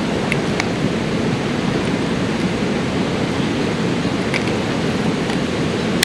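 Steady rushing noise, with a few faint clicks near the start and again about four seconds in.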